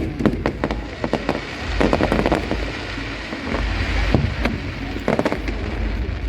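Fireworks display: clusters of sharp bangs and crackling shell bursts over a continuous low rumble.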